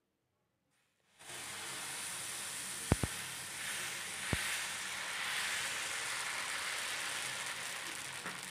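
Fermented dosa batter sizzling steadily on a hot pan as it is poured and spread thin with a ladle, starting about a second in. Three sharp clicks sound around three and four seconds in.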